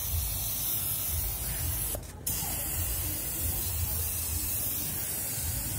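Gravity-feed compressed-air spray gun spraying paint onto a tractor wheel rim: a steady hiss of air and atomised paint. It breaks off briefly about two seconds in, then resumes.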